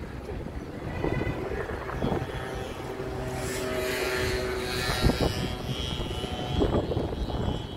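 Steady distant engine drone with a faint whine, under low rumbling gusts of wind on the microphone, the strongest about five seconds in.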